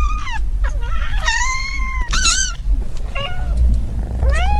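A cat meowing about five times in a row, high-pitched calls that rise and fall, the last one rising sharply, over a steady low rumble.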